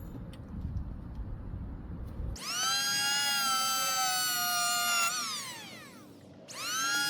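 A low rumbling noise, then an electric hand planer's motor switched on with a quick rising whine, running high-pitched with its pitch sagging slightly. About five seconds in it is released and winds down with a falling whine, then a second and a half later it is switched on again and spins back up.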